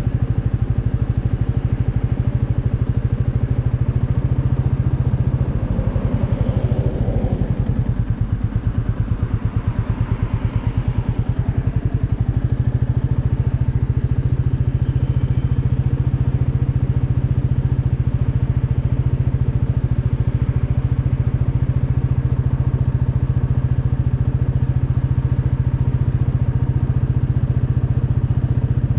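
Royal Enfield Meteor 350's single-cylinder engine idling steadily.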